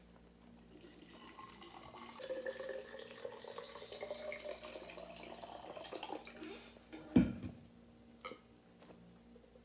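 A drink being poured into a cup, gurgling, its pitch rising as the cup fills. About seven seconds in there is a single sharp knock, the loudest sound here.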